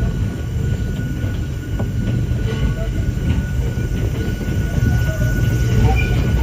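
Hakone Tozan Railway Moha 1 electric railcar running, heard from inside the car: a steady low rumble of wheels and running gear under a constant high tone, with a few short, faint squeaks.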